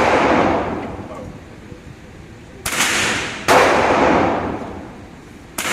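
Gunshots fired singly: two about 2.7 and 3.5 seconds in and a third right at the end, each followed by an echo that dies away over about a second.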